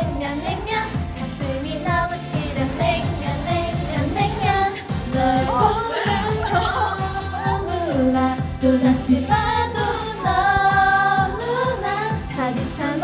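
A Korean pop song: singing over a backing track with a steady beat.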